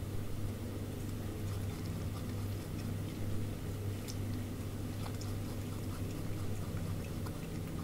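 Brushtail possum chewing a piece of apple: faint, irregular small clicks and crunches over a steady low hum.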